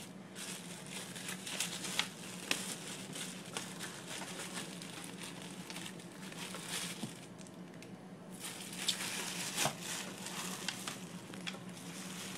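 Packaging crinkling and rustling in irregular bursts as parts are handled out of a box, over a faint steady low hum.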